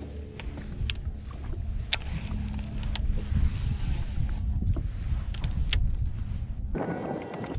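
Wind buffeting the microphone and water lapping against a fibreglass bass boat's hull, a steady low rumble with a few sharp clicks scattered through it.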